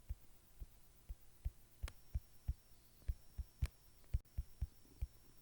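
Faint, soft low thumps, about three a second at uneven spacing, with a couple of sharper clicks among them.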